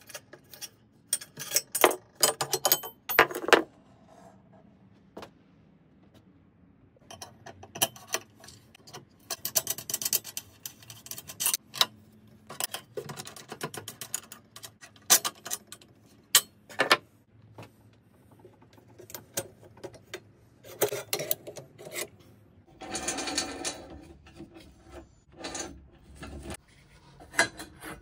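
Metal parts of a hand-built steel machine being taken apart by hand: an irregular run of clicks, knocks and clinks of metal on metal, with a longer scraping rub about three-quarters through.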